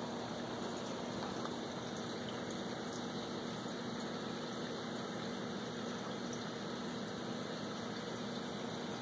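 Reef aquarium running: a steady hiss of circulating, trickling water from the tank's pumps, with a steady low hum from the pump motor.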